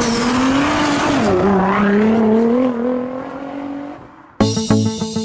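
A car engine held at high revs with its pitch wavering and sliding, over a hiss of spinning, smoking tyres as in a burnout; it fades away about four seconds in. Just after, guitar and bass music starts abruptly.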